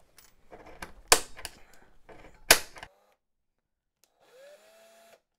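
A spring-loaded automatic center punch snaps twice on the flat rivet of a die-cast toy car's base, about a second and a half apart, with small scraping clicks around the snaps. Near the end, a power drill spins up with a rising whine and runs steadily for about a second as its bit starts on the rivet.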